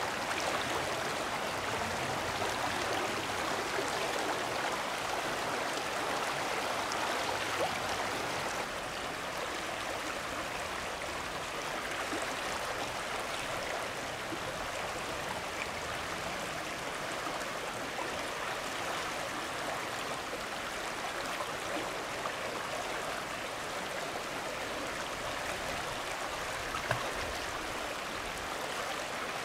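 Shallow river flowing fast over rocks, a steady rush of water that drops a little in level about eight seconds in. One short, sharp tap stands out near the end.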